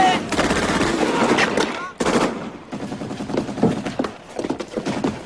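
Bursts of automatic submachine-gun fire, dense for the first two seconds, then sparser and quieter shots.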